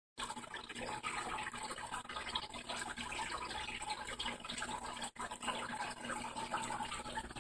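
Steady trickling and splashing of water circulating in a running 75-gallon aquarium, with a faint steady hum underneath.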